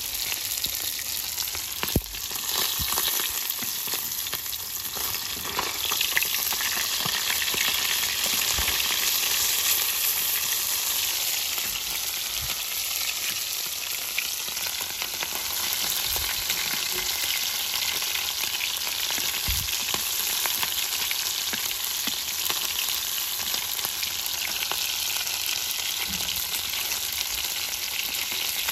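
Whole fish sizzling as they fry in hot oil in a wok: a steady, dense crackling hiss, with a few sharp clicks and light knocks, the sharpest about two seconds in.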